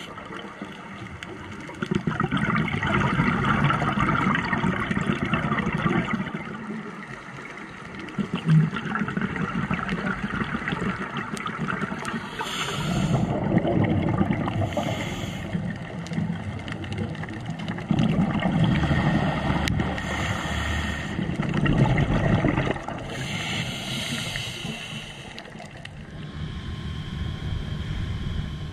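Underwater scuba-diving audio: a diver's exhaled bubbles gurgling and rushing in swells a few seconds apart, with a hiss in between.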